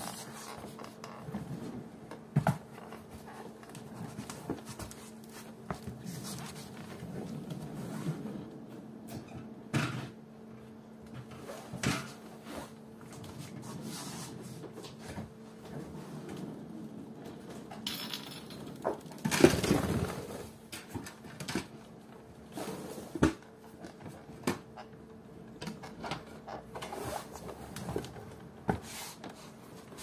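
Silicone chair caster wheels being handled and fitted to a chair base: scattered clicks and knocks, with a longer, louder noise around twenty seconds in, over a faint steady hum.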